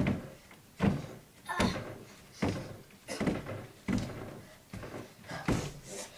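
A run of about eight dull thuds, one every second or less, each with a short fabric rustle, as a person climbs a tall stack of pillows and bedding, bracing hands and feet against the hallway walls.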